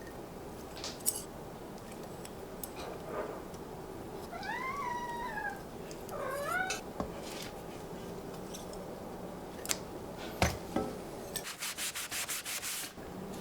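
A cat meowing twice, each call rising and then falling in pitch. Scattered light clicks follow, then a quick run of about ten short scraping strokes near the end.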